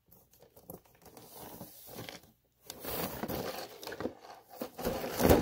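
Wrapping paper on a gift-wrapped box crinkling and rustling as the box is handled and lifted, ending in a thump.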